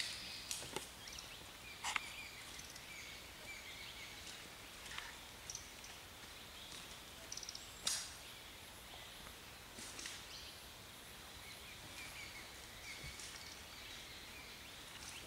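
Faint outdoor forest ambience with scattered short chirps and a few sharp clicks, including a quick run of ticks just before the middle.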